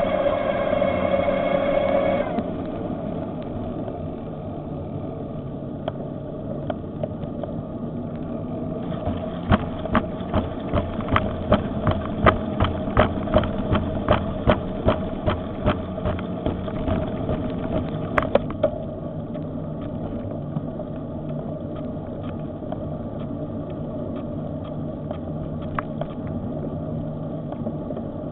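Electric bicycle motor whining under power, then cutting off about two seconds in. After that there is steady rolling and wind rumble. A run of regular clicks, about two a second, comes between roughly a third and two-thirds of the way through.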